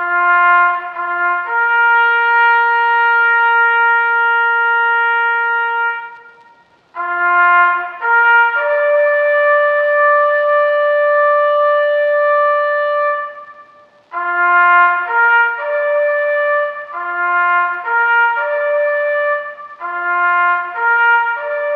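Background music: a trumpet plays slow phrases of long held notes, each phrase opening with a couple of short notes and rising to a long sustained note.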